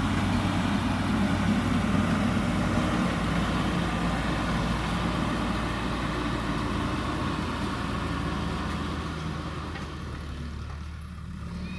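Diesel engine of a JCB backhoe loader running steadily, its note shifting a little a couple of times and easing off near the end.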